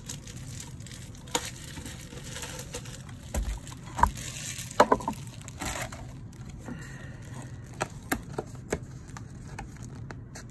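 Cardboard trading-card hobby box and its plastic shrink-wrap being handled on a desk: scattered crinkles, taps and knocks, loudest about four to five seconds in.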